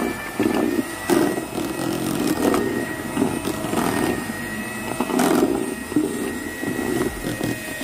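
Electric hand mixer running steadily with a constant motor whine, its beaters whipping egg whites in a stainless steel bowl toward stiff peaks, with a few sharp knocks along the way.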